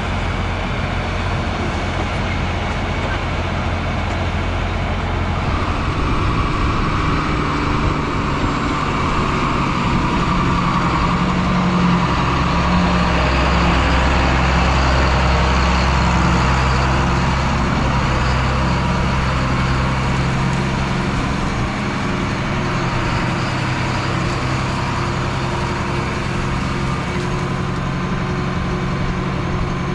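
Diesel engine of heavy farm machinery running steadily under load. It gets louder and heavier from about six seconds in, then eases back a little after about twenty seconds.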